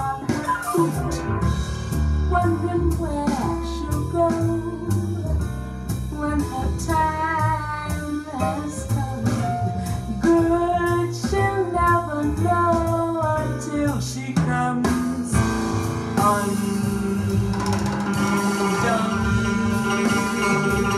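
A song with a singing voice, guitar, bass and drums, played back through a Wavebourn Gubernator-71 single-ended valve amplifier and Ruark Solstice speakers. The band grows fuller and busier near the end as the drums come in harder.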